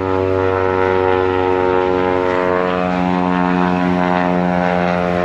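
High-wing light airplane flying low overhead, its propeller engine giving a steady, loud drone.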